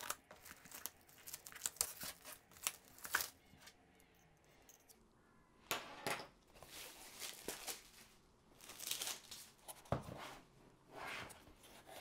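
Clear plastic wrap on a small cardboard box being slit open and peeled off: irregular crinkling, tearing and rustling with scattered sharp clicks, busiest in the second half.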